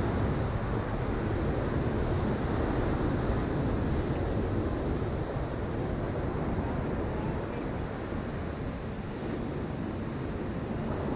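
Ocean surf breaking and washing up a sandy beach: a steady rush of waves that eases off a little in the second half, with wind rumbling on the microphone.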